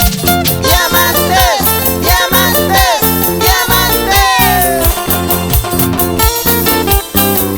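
Upbeat Latin-style music with a steady, regular beat in the bass and gliding, sliding melody lines over it.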